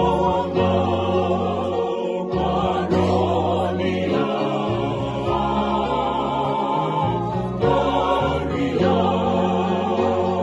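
Mixed group of men's and women's voices singing a Fijian song together in harmony, with long held notes that waver with vibrato.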